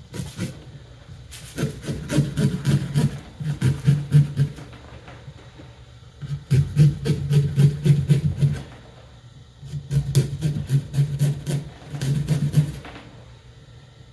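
Kitchen knife sawing through a pumpkin's rind and flesh in quick back-and-forth strokes, in three bouts of a few seconds each, as a face is carved into the pumpkin.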